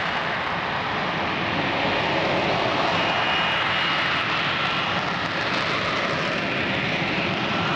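Lockheed Martin F-35B Lightning II in jet-borne hover with its lift fan engaged: its Pratt & Whitney F135 jet engine gives a loud, steady, unbroken noise. A faint high whistle rides over it about three seconds in.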